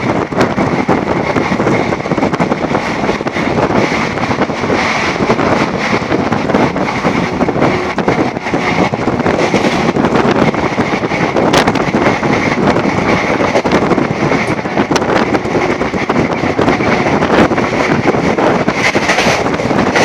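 Passenger train running at speed, heard from an open coach door or window: a steady, loud rumble and rattle of wheels on rails, mixed with wind on the microphone.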